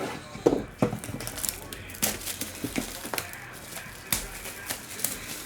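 A sealed trading card box being opened by hand: plastic wrap crinkling and cardboard handled, with a run of sharp clicks and knocks, the loudest about half a second in.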